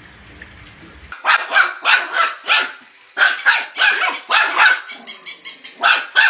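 A dog barking in a rapid string of short barks, about three a second, starting about a second in, with a brief pause near the middle.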